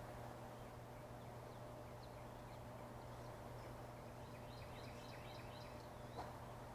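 Faint outdoor background: a steady low hum with a quick run of small bird chirps about two-thirds in, and a single light click near the end.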